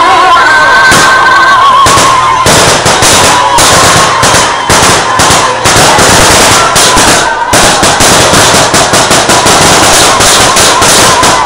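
Dense gunfire into the air from a crowd, sharp shots and bursts that come faster toward the end, over crowd noise, with a warbling high tone in the first couple of seconds. The recording is overloaded and distorted.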